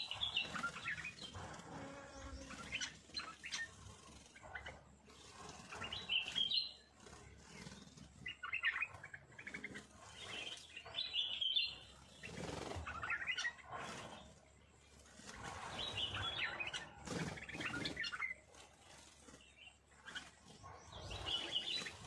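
Small birds chirping and twittering in short bursts, one flurry every second or two.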